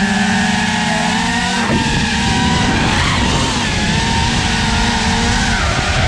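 Brushless motors and propellers of a 5-inch FPV quadcopter (T-Motor Pacer 1950KV motors on 6S) whining in flight, the pitch dipping and rising a little with throttle.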